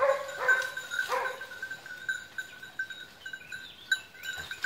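Hunting dog giving a few short yelping cries in the first second or so, then fainter calls over a steady high ringing.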